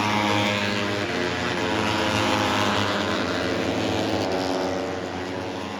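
Loud engine drone, several steady pitched tones together, that holds strong and eases off near the end.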